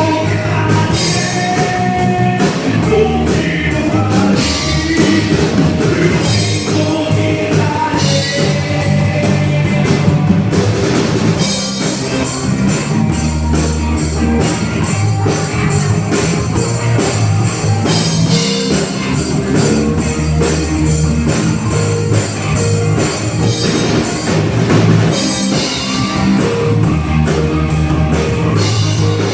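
Live rock band playing drums, electric guitar and bass. A sung vocal line runs over roughly the first ten seconds, then the band plays on without it.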